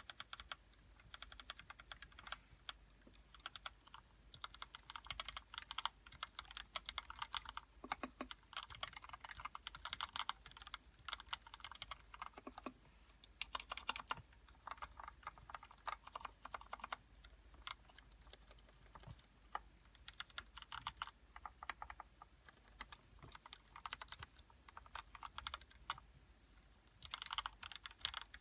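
Typing on a GH60 mechanical keyboard with lubed Gateron Red linear switches fitted with shorter vintage Cherry MX Black springs, which somewhat muffle the clack. Fast runs of keystrokes come in bursts with brief pauses.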